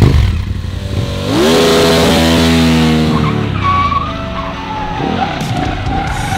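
KTM 1290 Super Adventure S V-twin engine revving hard: the revs climb sharply about a second in, hold high for a couple of seconds, then fall away. Near the end there is a steady tyre squeal from the rear tyre sliding in a drift.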